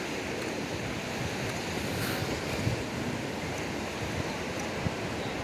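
Ocean surf washing steadily onto the beach, with wind buffeting the microphone and a couple of brief low thumps.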